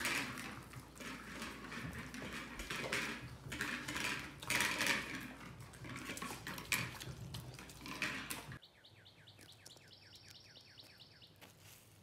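Dogs eating from food bowls on a stone countertop: irregular clinking and scraping of the bowls with chewing and lapping. It stops abruptly about three-quarters of the way through, leaving a faint, rapid series of high chirps.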